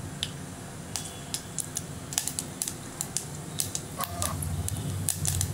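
Mustard seeds starting to crackle in hot oil: scattered sharp pops that come faster toward the end, the sign that the oil is hot enough for tempering.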